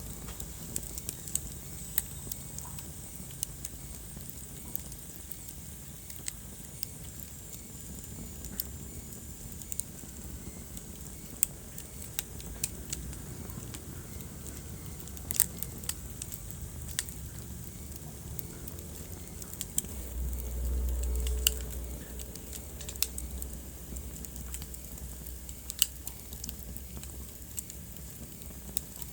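Wood fire crackling in a fireplace: irregular sharp pops and snaps over a steady low rumble and hiss of the flames. The low rumble swells briefly about twenty seconds in.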